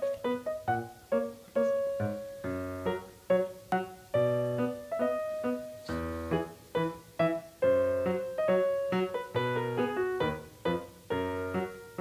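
Background piano music: a bouncy tune of short, quickly fading notes, several a second.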